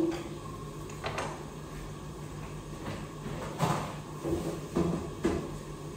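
A few light, separate knocks and clatters of kitchen things being handled and put away during clean-up, over a steady low hum.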